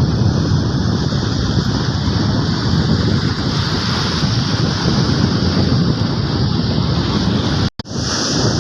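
Wind buffeting the microphone over the steady wash of surf on the beach. The sound cuts out for an instant near the end.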